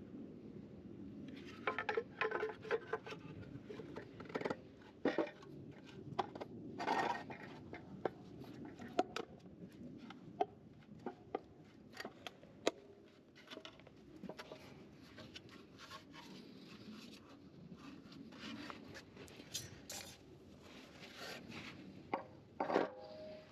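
Hand tools and metal or plastic parts being handled during a repair: irregular clicks, light knocks, clinks and scrapes, with a louder cluster of knocks near the end.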